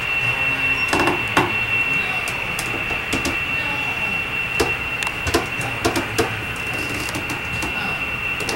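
Indoor room noise: a steady high-pitched whine with scattered sharp clicks and light knocks at irregular moments.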